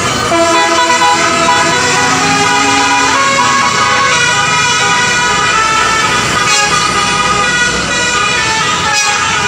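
Bus basuri horn, the Indonesian multi-tone telolet air horn, playing a tune: several horn tones sound together and change note every second or so, with the bus engine running underneath.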